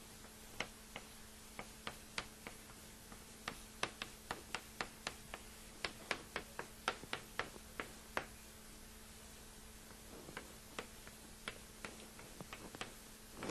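Chalk tapping and scratching on a blackboard as characters are written: a run of sharp, irregular clicks, close together for the first eight seconds or so and sparser near the end, over a faint steady hum.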